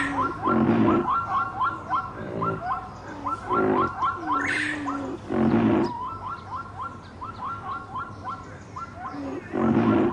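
Wild animal calls: loud, rough cries come every second or two, and between them run trains of quick, high chirping notes repeated several times a second.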